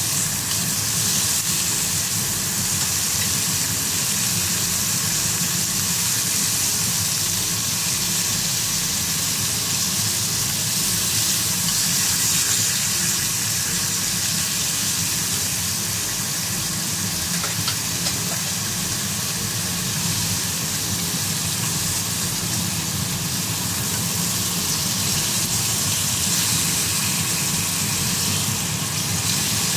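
Thinly sliced beef sizzling steadily in hot oil in a nonstick frying pan as it is turned with chopsticks, with a steady low hum underneath.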